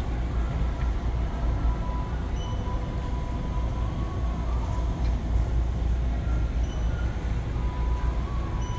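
Steady low background rumble, with a few faint, brief high-pitched tones now and then.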